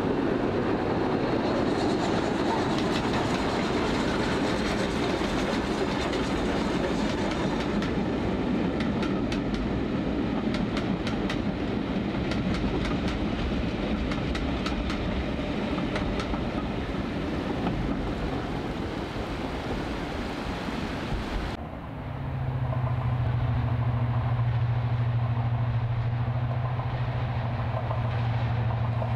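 Train of passenger coaches crossing a steel girder bridge, wheels clacking over rail joints. After a cut about 22 s in, a steady low drone from the Napier Deltic diesel engines of a class 55 Deltic locomotive approaching.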